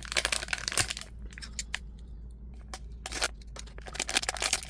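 Scissors cutting open a plastic blind-bag package that has no tear strip, with crackling crinkles of the wrapper. The cutting and rustling are busiest in the first second, ease off, then come back about three seconds in and near the end.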